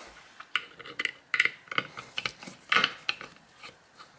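Scattered small metallic clicks and taps as a brass lock cylinder is handled in a wooden pinning tray and a Phillips screwdriver is fitted to the screws on its back, with a quick cluster of clicks a little under three seconds in.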